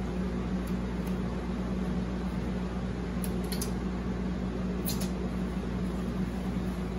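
A steady low hum, with a few faint sharp clicks of a mouth chewing a bite of cheeseburger, two of them close together about three and a half seconds in and another near five seconds.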